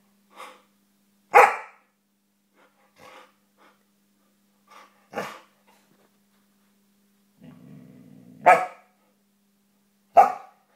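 Alaskan malamute hiccuping: short, sharp yelp-like hics, four loud ones a few seconds apart with fainter ones between. A low grumble comes just before the third loud one.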